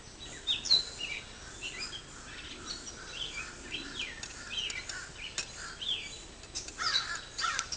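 A songbird chirping outdoors: a string of short, high chirps that slide downward in pitch, about two a second.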